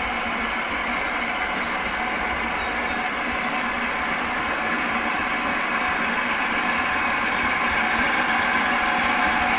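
Steam locomotive hauling a train of coaches, working hard with a heavy exhaust, its steady noise growing slowly louder as it approaches.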